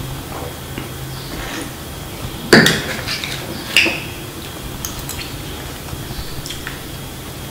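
A glass of juice and a metal spoon clinking: two sharp knocks about a second apart, the first louder, then a few faint taps of the spoon.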